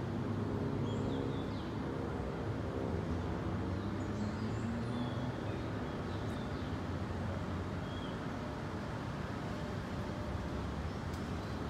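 Steady low drone of city traffic, with an engine hum in the first few seconds and scattered short bird chirps over it.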